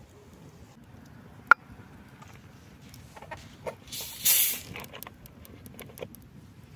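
Campfire crackling with scattered sharp pops, one loud pop about a second and a half in. There is a brief loud hiss a little past the middle.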